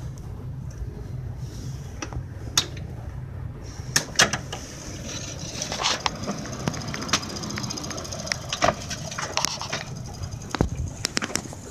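Steel wheels of a 5-inch gauge miniature railway train rolling slowly past on its track: a steady low rumble with sharp, irregular clicks and clacks as the wheelsets pass over the rails.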